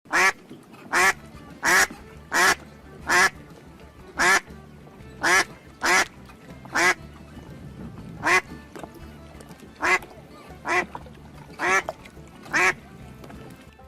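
A duck quacking about fourteen times, single short loud quacks roughly a second apart with uneven gaps, over faint background music.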